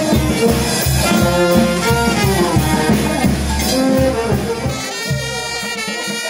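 Brass band music with a steady drum beat; about five seconds in, the drum drops out and the brass holds long notes.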